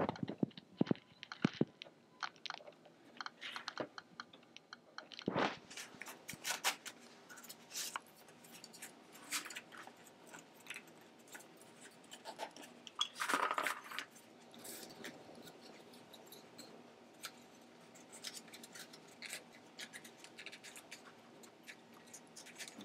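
Rattan basket reed being pushed and pulled under the woven weavers: irregular crackles, clicks and rubbing as the reed end is threaded down through the weave, with a longer scrape about 13 seconds in.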